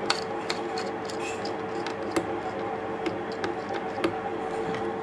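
Small irregular clicks and ticks of a Phillips screwdriver turning and seating in the tiny screws that hold a laptop's CPU and GPU heatsink to the motherboard, over a steady hum.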